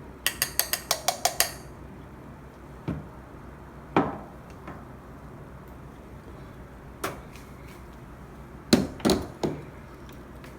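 Metal clinking and knocking as espresso-machine parts are handled: a quick run of about eight light metallic taps about a second long near the start, then six separate single knocks.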